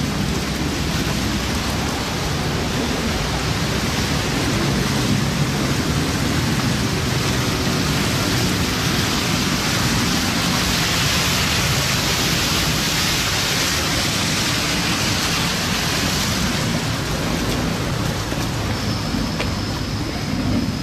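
Steady rain falling, an even hiss that rises a little about halfway through.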